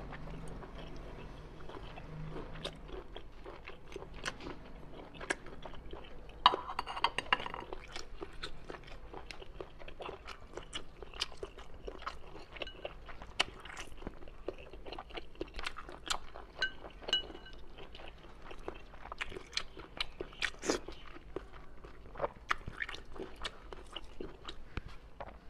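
Close, small handling sounds of cooked conch being worked out of its shell and peeled by hand: scattered sharp clicks of a chopstick and fingers against the shell, with soft wet squishing of the meat.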